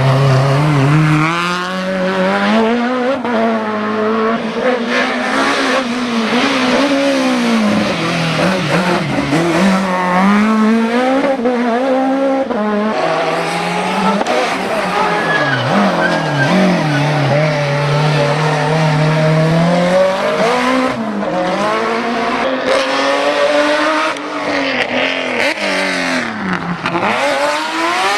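Hill-climb race car engine under hard acceleration, its revs climbing and dropping back again and again through gear changes and braking for corners.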